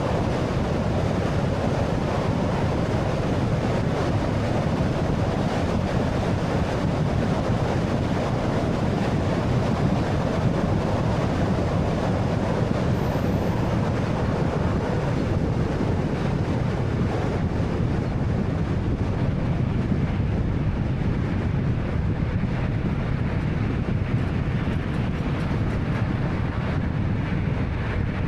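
2013 Honda Fit (1.3-litre) driving along, a steady rumble of road and tyre noise with engine hum. The higher hiss thins out somewhat in the second half.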